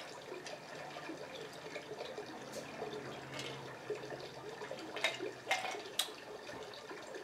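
Sipping and swallowing from a stemmed drinking glass, with several short clicks and knocks, the sharpest near the end.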